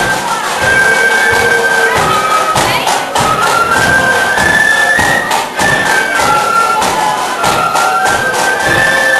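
Marching flute band playing a tune in unison on flutes over side drums and a bass drum. The flute melody moves in held notes, with a steady run of drum strokes beneath it.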